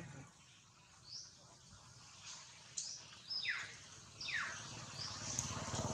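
Wild birds chirping: scattered short high chirps and two falling whistles about three and a half and four and a half seconds in, over a low background rumble.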